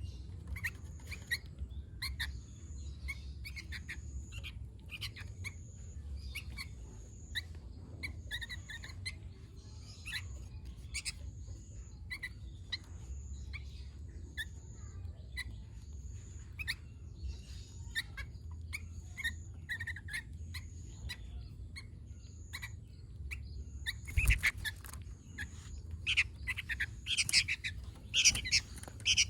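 Sooty-headed bulbul (kutilang) singing in quick, short chirping notes, louder and busier in the last few seconds.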